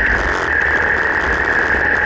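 Harley-Davidson V-twin motorcycle under way: the engine running with steady wind and road noise over the bike-mounted camera.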